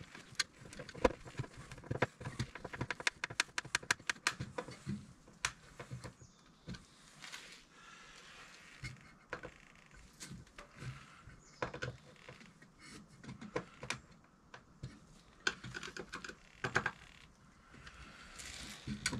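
Screws being driven by hand with a screwdriver into a metal generator connection box on wooden siding. A run of sharp, rapid clicks and scrapes, densest in the first few seconds, then scattered clicks and short scraping bursts.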